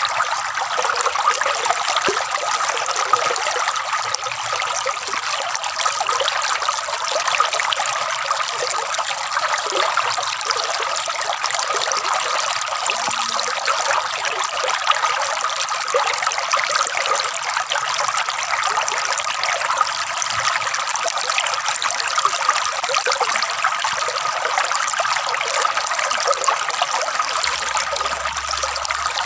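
Shallow water trickling and gurgling steadily, light and splashy with almost no low rumble.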